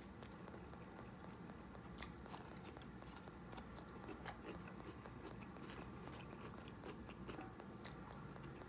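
A person chewing fried fish, with faint scattered clicks and light scrapes as a plastic fork picks food from a foam takeout box.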